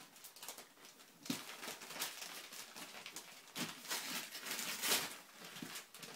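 Wrapping paper rustling and tearing as a gift-wrapped box is unwrapped by hand, in a run of short bursts that are loudest about four to five seconds in.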